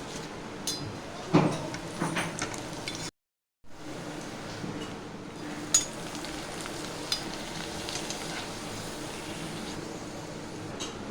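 Papad frying in hot oil: a steady sizzle, with a few sharp clicks and clinks, as of a utensil stirring against the pan. The sound drops out completely for about half a second around three seconds in.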